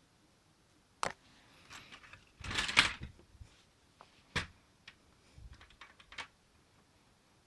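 Clicks and a rattle from a Lego-brick pump-action shotgun's plastic mechanism. There is a sharp click about a second in and a louder clattering rattle lasting about half a second soon after. Another sharp click follows, then a few lighter clicks near the end.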